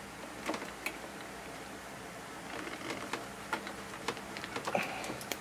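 Crimping pliers and locking pliers clamping a blue butt connector onto a wire: scattered sharp metal clicks and small rattles, with the rustle of gloved hands handling the tools, thickest near the end.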